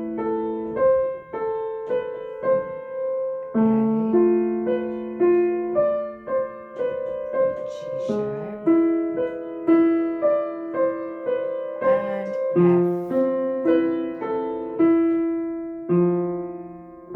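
Piano playing a left-hand part in A minor, single notes one after another at a moderate, even pace, each note ringing into the next.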